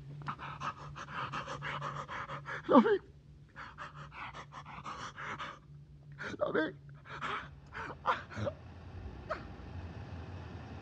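A man breathing hard in rapid, ragged gasps, broken by a few short voiced sobs. Near the end the gasping stops and a low, steady car engine drone takes over.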